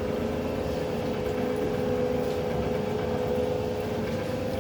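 Motor-driven citrus juice press machine running steadily, a constant hum with two steady tones.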